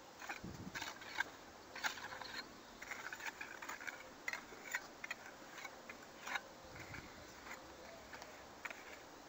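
Faint, irregular scraping and ticking of a narrow rubber spatula pressing joint filler into the joints of artificial-stone wall tiles.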